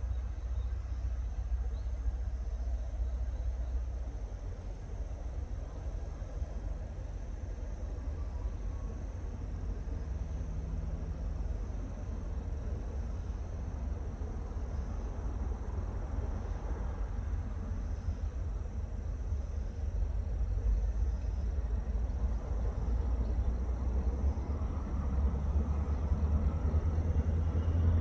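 Diesel locomotive hauling a passenger train, heard as a low engine rumble that grows louder near the end. A high insect chirping pulses steadily over it.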